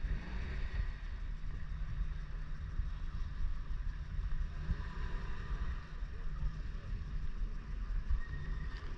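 Wind buffeting the camera's microphone, a gusty low rumble, with faint background murmur.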